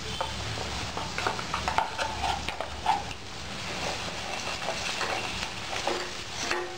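A spoon stirring thick onion-and-spice masala paste in a steel pan, scraping and clicking irregularly against the pan, over a light sizzle of the frying oil.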